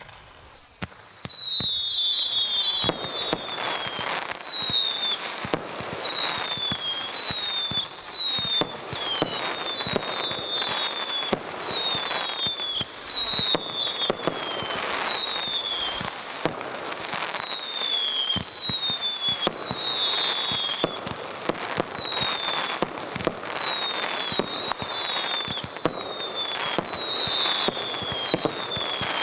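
A 305-shot fireworks cake firing a continuous barrage: rapid cracks and bursts overlaid with many whistling comets. Each whistle glides down in pitch over a second or so, and the whistles overlap throughout.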